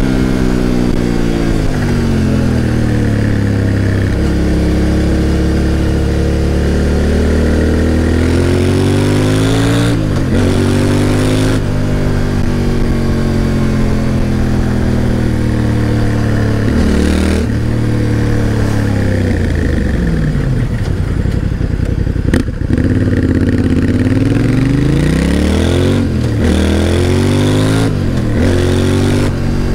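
Yamaha Ténéré 700's 689 cc parallel-twin engine under way: it revs up through the gears, dropping back briefly at each shift. About two-thirds of the way through the revs fall as it slows, then it pulls away and shifts up again.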